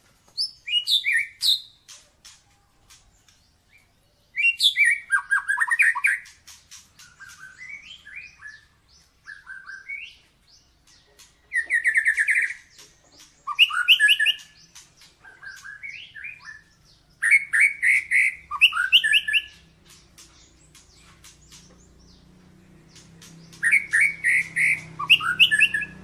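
White-rumped Shama (murai batu) singing in separate phrases of quick whistles, trills and sharp notes. Each phrase lasts one to two seconds, with short pauses between, and some phrases are loud while others are soft. A faint low hum comes up near the end.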